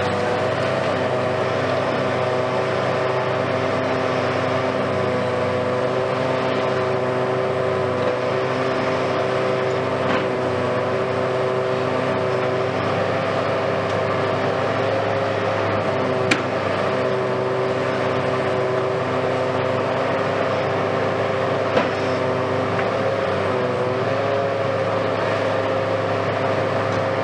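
Hitachi Kiesel KMC520 high-reach demolition excavator running steadily, its engine and hydraulics giving a constant hum with a steady whine. A few short knocks come through, the sharpest about sixteen seconds in.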